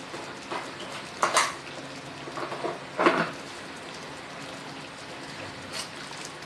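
A metal utensil knocking and scraping against a cooking pan several times, the two loudest knocks about a second and three seconds in, over the steady bubbling of chicken simmering in milk and water.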